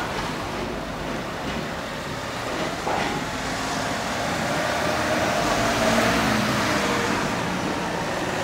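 Small cars driving slowly over a railway level crossing one after another, engines running and tyres on the road, with a single sharp knock about three seconds in; engine noise builds as a kei car approaches toward the end.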